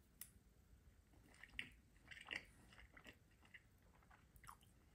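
Faint close-up chewing of a mouthful of spaghetti: soft wet mouth clicks and smacks, most of them about halfway through.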